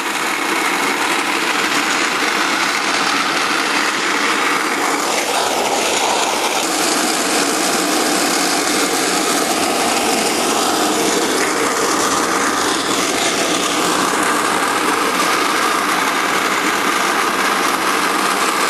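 1920s McCormick-Deering burr mill grinding corn between its two steel discs: a steady, dense grinding noise that swells in the first second. The mill is powered by a 1908 Frick 6-horsepower portable steam engine running alongside.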